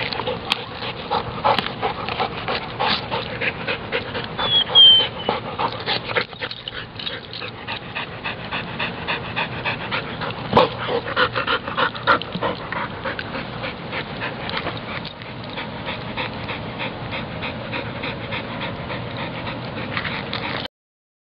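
Entlebucher mountain dog panting hard while gnawing and tearing at a coconut, with rapid, irregular cracking and crunching of the fibrous husk and shell, and a brief high squeak about five seconds in. The sound cuts off suddenly near the end.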